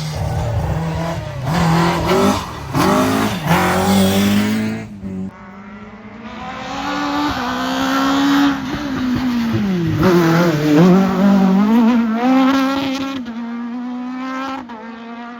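Rally cars driven hard, engines revving up and dropping back at each gear change, with some tyre squeal. The sound cuts to a second car about five seconds in, which accelerates through several gears and then fades away.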